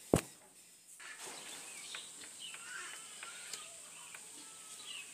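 Rural outdoor ambience: scattered short bird chirps over a steady high hiss, after a single sharp click at the very start.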